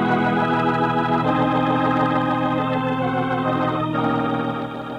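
Organ playing a curtain-raising music cue of sustained chords, the chord changing about a second in and again near the end as it starts to fade.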